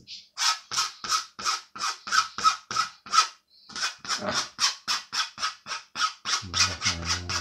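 Quick back-and-forth rubbing strokes on a sketch, shading or fading the drawing, about three a second at first and then faster, about five a second, from about halfway in. A brief low hum sounds under the strokes near the end.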